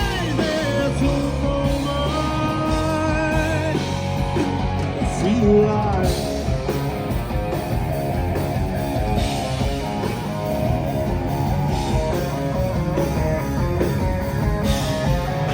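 Live rock band playing, with guitar prominent. A held melody line with vibrato carries the first few seconds, then the full band keeps up a dense, steady groove.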